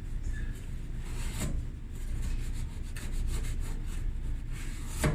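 A cloth wiping and rubbing the inside of a dryer cabinet, with faint scraping strokes and a sharp knock near the end.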